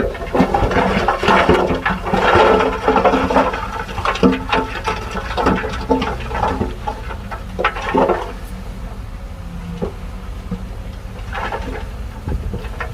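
A load of soil slides and pours out of a tipped dump truck bed, with small stones clattering in the rush, over a diesel engine running steadily. The rush is loudest for the first eight seconds or so, then thins out, with one short spill again near the end.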